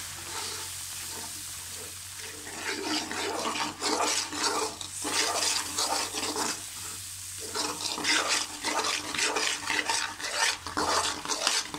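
A metal spoon stirring and scraping gram-flour halwa in a metal karahi, with the milk and ghee sizzling and bubbling as the roasted besan cooks in the milk. From about two and a half seconds in, the scrapes come in quick repeated strokes.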